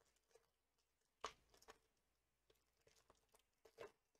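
Faint crinkling and tearing of a foil Yu-Gi-Oh! booster-pack wrapper being ripped open by hand. There is a sharp rip about a second in and a cluster of crackles near the end.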